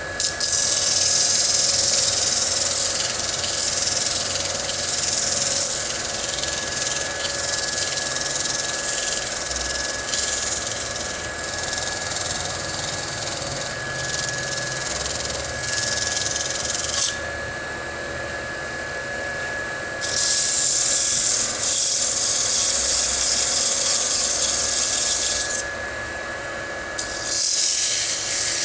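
Wood lathe running with a steady motor whine while sandpaper is held against the spinning wooden bowl, making a hissing rub. The rub drops out twice, for about three seconds past the middle and briefly near the end, as the paper is lifted off. This is sanding between coats of finish.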